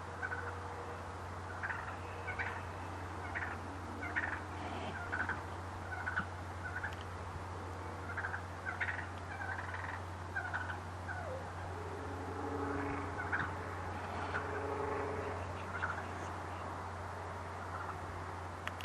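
Turkey calling: a string of short, separate notes repeating irregularly, with a few longer, lower notes about two thirds of the way through.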